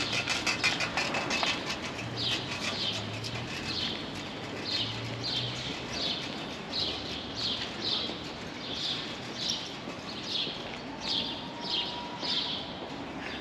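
Footsteps on a paved sidewalk at an even walking pace, a short scuff a little under twice a second, with a quick run of clicks in the first second or so.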